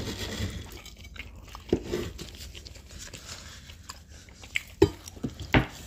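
A knife sawing through crisp, hard baklava on a wooden board, crackling as the pastry layers break, then a few sharp crunches of biting and chewing.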